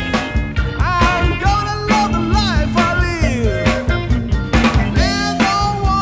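Soul band playing a driving Motown-style groove: drums keeping a steady beat under electric bass, guitar and Hammond organ, with a lead line that bends up and down in pitch.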